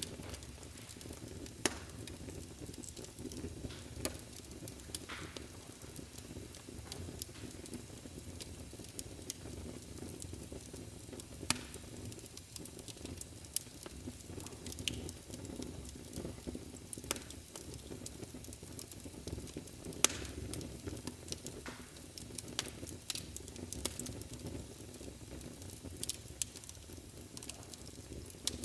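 Fire burning in a fireplace: a steady low rumble of flames with frequent small crackles and sharp pops, the loudest pop about twenty seconds in.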